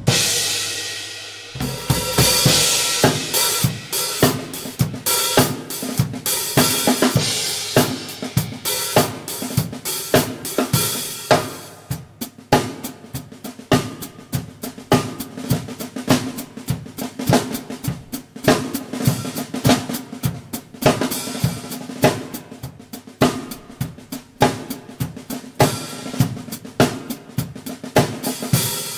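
A drum kit played alone, with no other instruments: a steady groove of bass drum, snare and hi-hat. Crashes on Sabian HHX cymbals wash over the first twelve seconds or so, then the pattern turns tighter, with more separate hits.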